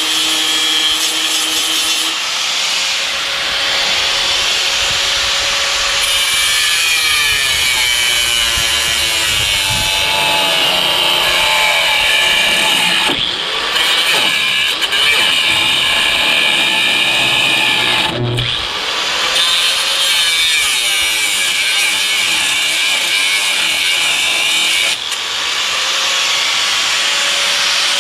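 Power grinder cutting through rusted bolts on a golf cart's frame rail, its whine sagging in pitch as it bites into the metal and rising again as it frees up, with a few brief letups.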